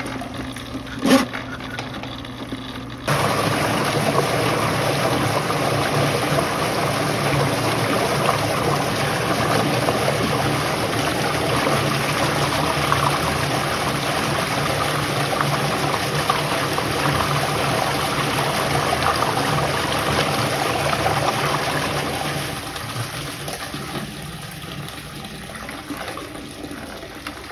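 Water rushing steadily through a sewer drain line. It starts suddenly about three seconds in and dies down over the last few seconds.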